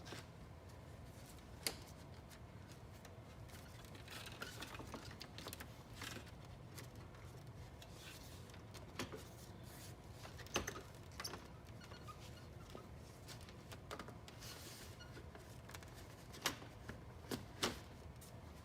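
Plastic anchor clips and grille parts being handled and fitted into the holes of a plastic car bumper: light, scattered clicks with rubbing in between, over a low steady hum.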